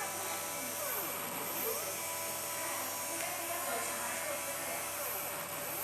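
Stepper motors of a 3-axis CNC kit running, a steady whine of several tones with a few short sweeps down and up in pitch.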